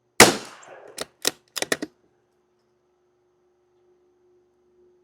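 A single .22 LR rifle shot from a Savage Mark II FV bolt-action rifle, followed about a second later by a quick run of metallic clicks as the bolt is worked open and closed to chamber the next round.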